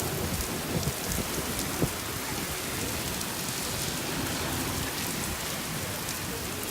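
Heavy rain beating steadily on a surface, many separate drop hits heard through the hiss, with one louder tap just under two seconds in.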